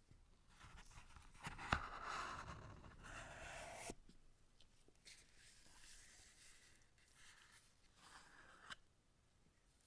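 Faint rustling and scraping of packaging being handled, with a sharp click about two seconds in; the scraping stops suddenly about four seconds in, and quieter rustles follow, ending with a small click.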